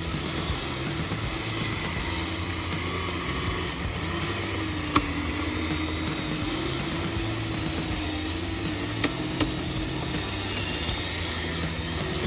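Radio-controlled construction machine's electric motor and hydraulic pump running with a steady whine that wavers slightly in pitch, and a sharp click about five seconds in and a couple more about nine seconds in.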